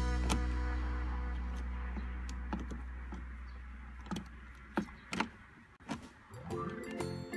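Background music with sustained notes fading away. A few separate sharp clicks and knocks of a tool working the instrument cluster's mounting bolts against the plastic dashboard follow. Music comes back in near the end.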